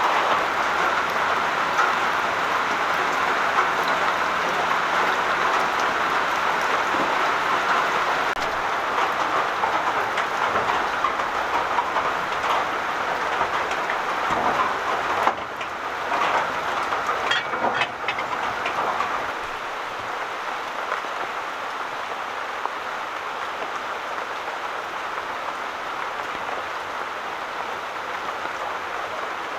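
Heavy rain falling steadily and splashing into puddles on muddy ground, easing somewhat about two-thirds of the way through.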